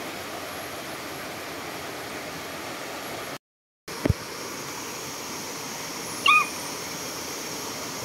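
Steady rush of river rapids over rocks, cutting out for a moment a little over three seconds in and resuming with a click. About six seconds in, a short high-pitched animal call stands out over the water.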